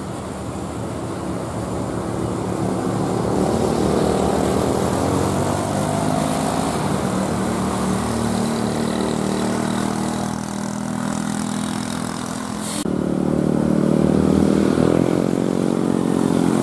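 Heavy container truck's diesel engine running hard under load on a steep climb, its revs rising a few seconds in and then holding. About three-quarters of the way through, the sound cuts suddenly to a different vehicle engine that rises and falls in pitch.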